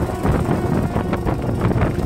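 Typhoon-force wind buffeting the microphone, with rain and rapid clattering knocks, and a faint steady tone held underneath.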